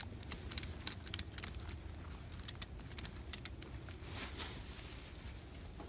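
Ratchet strap being cranked tight: a run of sharp metal clicks from the ratchet, a few a second, stopping after about three and a half seconds, then a brief rustle. The strap is pulling the dolly wheels in and starting to lift the log.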